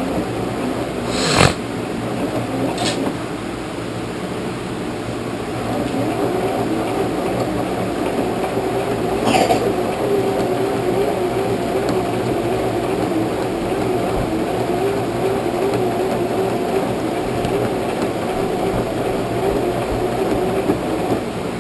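Lower-end home sewing machine running slowly and steadily, stitching a zipper through thick quilt-lined jacket material, with a few sharp clicks about a second and a half in, at three seconds and near nine seconds.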